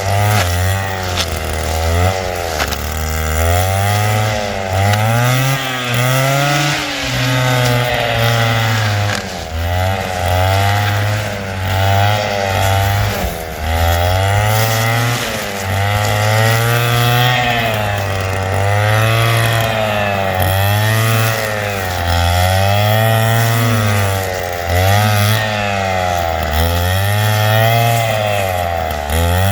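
Stihl FS 160 two-stroke brushcutter running while clearing undergrowth, its engine pitch rising and falling every second or two as the throttle is worked.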